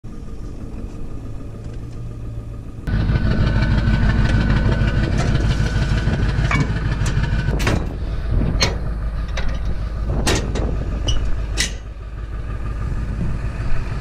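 Pickup truck engine idling with a steady low rumble that gets suddenly louder about three seconds in. Several sharp knocks and clanks sound over it.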